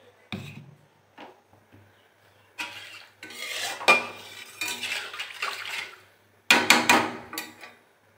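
A metal spatula scraping and clinking against a steel kadai as a thin gravy is stirred. It comes in a few short clinks at first, then irregular bursts of scraping strokes, with the loudest strokes near the end.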